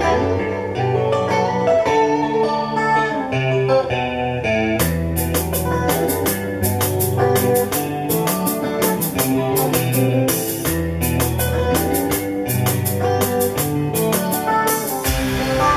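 Zouk kompa music played over Fluance SV10-S speakers: an instrumental passage of guitar, keyboard and bass, with the drums coming in with a steady beat about five seconds in and dropping out just before the end.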